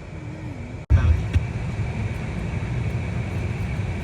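Steady low rumble of a car driving, heard from inside the cabin, starting abruptly about a second in after a brief dropout. Before it, a quieter background with a short voice sound.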